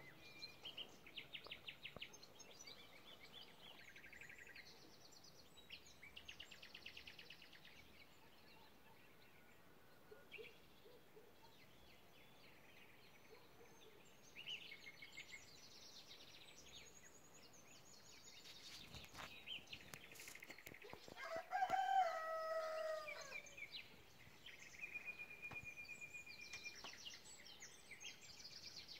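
Small songbirds singing in short, rapid high-pitched trills and chirps, on and off, with a rooster crowing once, loudest, about twenty-two seconds in.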